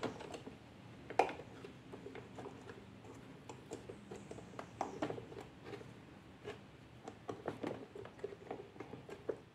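Small scattered clicks and scrapes of plastic and metal as a brass contact is fitted back into the contact base of an electric shower head, with a sharper click about a second in.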